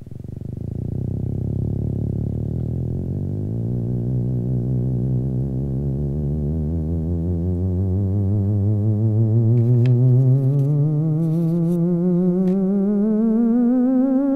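Theremin-like electronic tone with a steady wavering vibrato, starting low and gliding slowly upward in pitch while growing louder.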